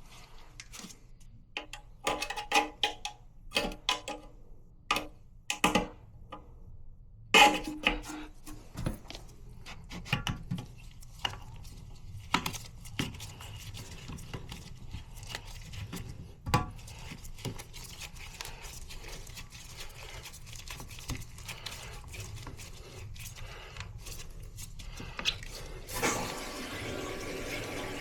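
Hard clinks and knocks of toilet tank parts being handled and fitted, several sharp ones with a short ring in the first eight seconds, then lighter clatter. Near the end, water starts running with a steady rush.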